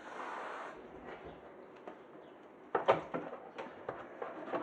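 A short hiss at the start, then a cluster of sharp knocks and clatter about three seconds in, from handling the dishwasher's door and racks during cleaning.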